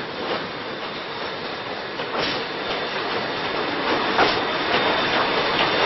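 Steam-hauled passenger train behind the JNR Class C11 steam locomotive C11 312 rolling slowly past into the station. Its wheels click over the rail joints, louder as the coaches go by.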